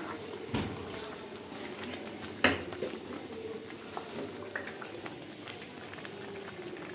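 Grated carrots simmering in milk for gajar ka halwa, bubbling in a steel kadhai while a metal ladle stirs and scrapes against the pan, with a sharp clink of the ladle on the pan about two and a half seconds in.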